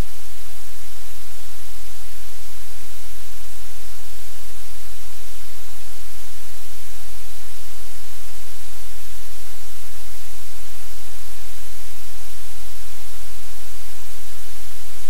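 Steady, loud static hiss over a low hum.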